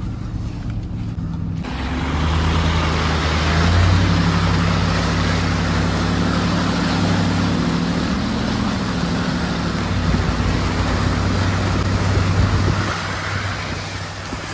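Supercharged 6.2-litre V8 of a Hennessey Mammoth 1000 Ram TRX running steadily as the truck drives through a pond. A loud rush of water spraying against its side starts about two seconds in and fades near the end as it leaves the water.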